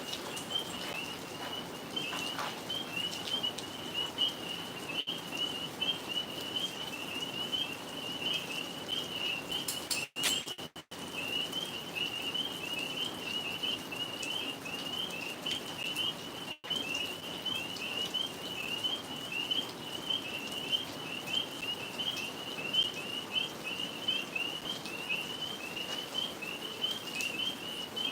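Chorus of tree frogs calling continuously: a dense, high-pitched run of rapid chirps. The sound cuts out briefly a couple of times about ten seconds in.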